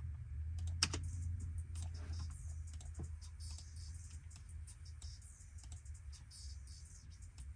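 Typing on a computer keyboard: irregular keystrokes and clicks, several a second, over a low steady hum.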